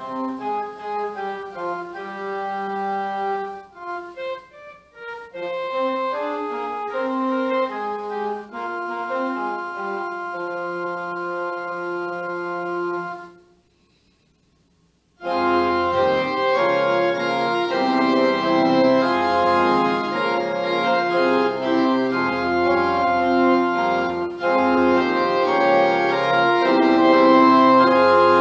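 Church pipe organ playing slow, held chords. About 13 seconds in it stops for under two seconds, then comes back fuller and louder with deep bass notes added.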